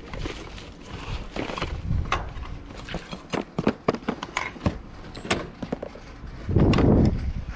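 Rummaging through a dumpster: a run of irregular knocks, clicks and thunks as items are shifted, with a louder, longer rustling scrape about six and a half seconds in.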